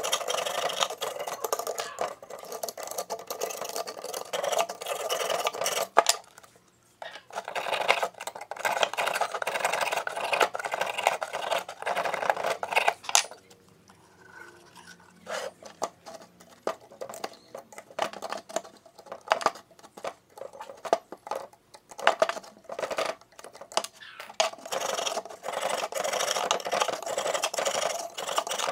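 A small metal scraper scratching flaky rust off a rusted loudspeaker magnet assembly and steel frame in quick rasping strokes. It stops for a couple of seconds about halfway, then resumes as separate strokes before turning into steady scraping again.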